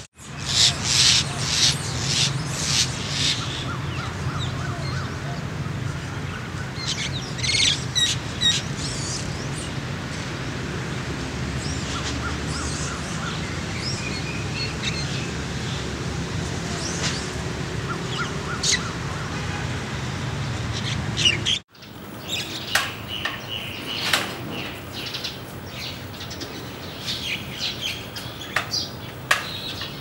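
Small birds chirping and twittering in quick trills over a steady low rumble. The sound cuts out for an instant about two-thirds of the way through, then resumes with more scattered chirps.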